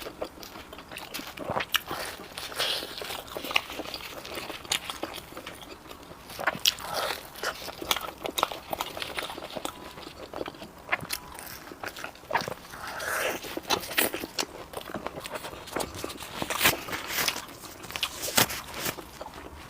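Close-miked eating of fried glutinous rice cakes with black sesame filling: repeated crunchy bites and chewing, with many irregular sharp crackles.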